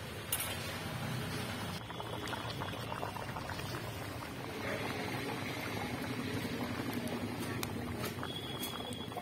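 Mutton and potato curry boiling hard in an open kadai, a steady bubbling with many small pops. A light click of the spatula against the pan just after the start.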